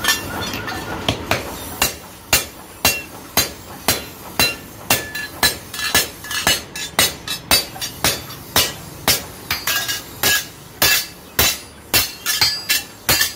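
Blacksmith's hand hammer striking an iron farm-tool blade held on a small anvil: steady blows about two a second, each with a short metallic ring.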